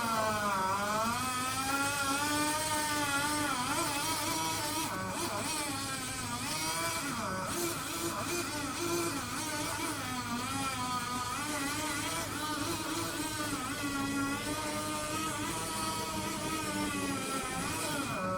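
Two-stroke chainsaw running steadily, its pitch rising and falling with the cutting load.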